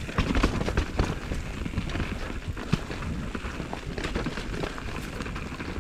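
Mountain bike rolling over rough trail: an irregular clatter of tyres striking rock and the bike rattling, over a low constant rumble.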